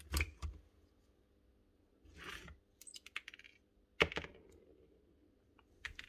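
Clicks and knocks of hard plastic and metal parts as the rotor is worked loose and lifted out of the opened Makita DTD156 impact driver's housing, with a short scraping rustle about two seconds in.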